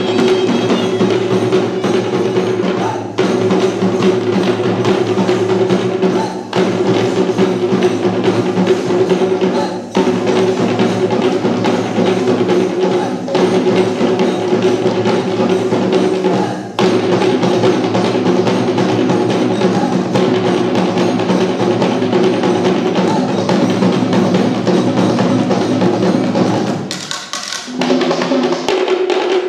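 Sri Lankan drum ensemble of geta bera and thammattama drums played together in a fast, dense rhythm, with a short break about every three seconds. A steady tone holds under the drumming, and there is a brief lull near the end before the drums come back in.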